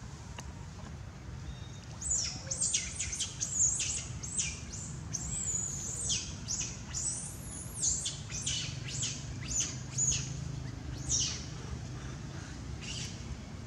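A run of short, high-pitched squeaky animal calls, each falling sharply in pitch, roughly two a second, starting about two seconds in and thinning out near the end, over a steady low rumble.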